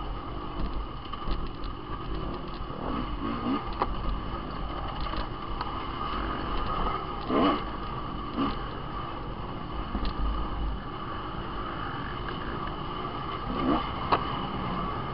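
Dirt bike engine running steadily under throttle, heard from the rider's onboard camera, with a few short knocks and rattles from the bike over the rough trail, the loudest about seven seconds in and near the end.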